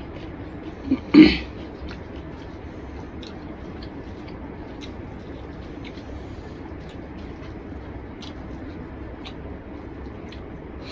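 Eating sounds: a person chewing and mixing rice with spinach curry and dal by hand on a plate, with soft wet squishes and small scattered clicks. A short louder sound comes about a second in.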